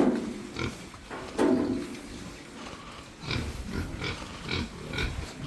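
Domestic pigs grunting: one louder call about a second and a half in, then a run of short grunts from about three seconds on.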